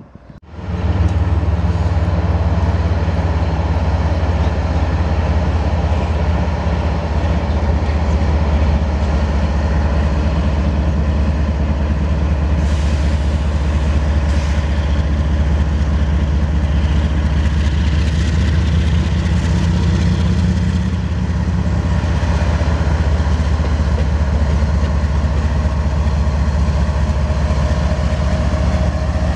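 GE ES44AC diesel-electric locomotive's V12 diesel engine running with a steady deep hum as the locomotive rolls slowly past at close range, pulling freight cars. The sound comes in abruptly about half a second in.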